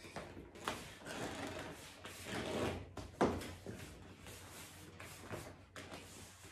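Rubber boot being pulled on over a foot: the snug rubber rubs and creaks, with a few louder creaks along the way.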